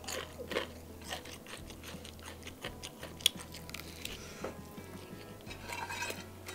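Close-miked biting and chewing of crispy McDonald's spicy fried chicken, the breading crunching in many short crackles, with one sharper crack about three seconds in.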